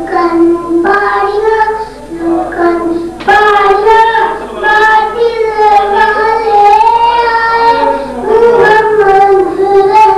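A boy's solo voice chanting a naat, an Urdu devotional poem sung without instruments, in long held notes that waver and bend in pitch, with a short break about two seconds in.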